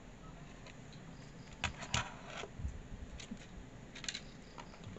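A few light clicks and taps of small metal parts and a screwdriver as an optical-bay hard-drive caddy's lock bracket is handled, spread out with gaps between them.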